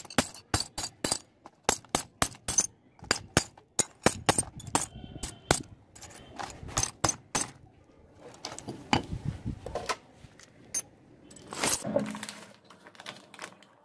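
Pieces of blue glass being broken up with a metal bar over a plastic sack: a quick run of sharp clicks and cracks, with shards clinking together. After about seven seconds the clicks thin out into shards being handled and clinking, and a brief scuffing sound follows near the end.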